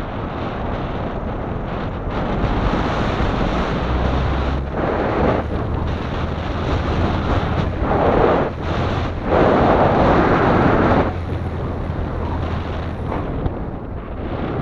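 Strong wind buffeting the microphone in a loud, continuous rush, with heavier gusts about eight seconds in and again from about nine and a half to eleven seconds.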